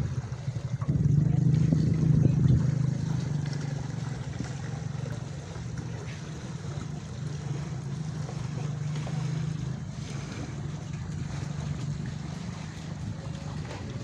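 A steady engine drone, loudest in the first few seconds and then easing to a lower, even level, with wind on the microphone.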